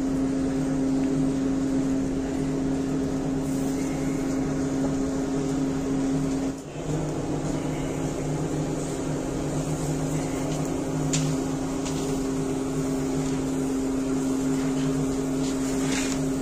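Steady machine hum with a fixed low tone, dropping out briefly about six and a half seconds in, with a few light clicks later on.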